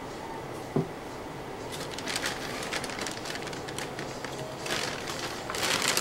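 Thin plastic shopping bag rustling and crinkling as a hand rummages in it and pulls out an old comic book, with a short knock just under a second in.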